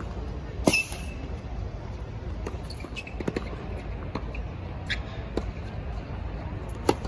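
Tennis balls struck by rackets and bouncing on a hard court during a practice rally: a handful of sharp pops, the loudest about a second in and another strong one just before the end, over a steady low rumble.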